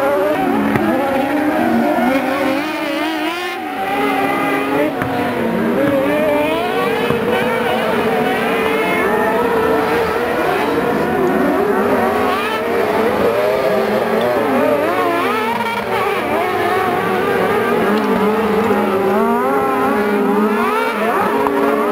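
Several kartcross buggies racing on dirt, their high-revving motorcycle engines overlapping. Each rises and falls in pitch as the cars accelerate and back off through the bends.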